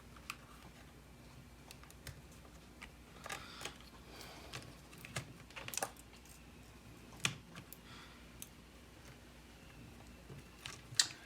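Scattered light clicks and taps of small electronic parts being handled, as an 80 GB hard drive is connected back into an opened iPod Classic, with a sharper click about seven seconds in and another near the end.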